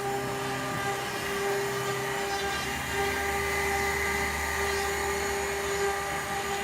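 Dual-spindle CNC wood lathe running, with a steady machine whine; a lower hum comes in about two and a half seconds in.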